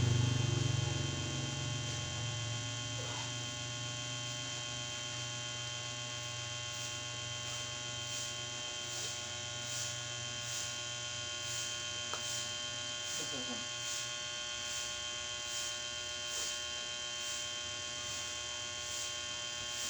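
A steady electric hum made of many even tones, with a louder low rumble in the first few seconds that fades away. From about seven seconds in, a faint high ticking repeats a little under twice a second.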